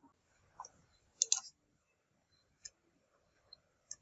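A few scattered, sharp computer clicks, about five in four seconds, the loudest a quick double click just over a second in.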